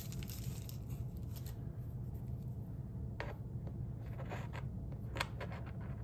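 A few light clicks and taps of small metal embellishments being handled and set down on a wooden art panel, over a steady low hum.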